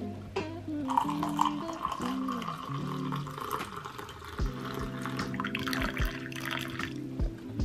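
Hot coffee poured from a jug into a ceramic mug: a steady stream splashing and trickling, starting about a second in.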